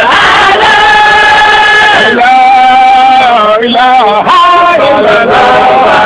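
A male voice chanting a Sufi zikr, holding long notes with wavering, bending ornaments between them.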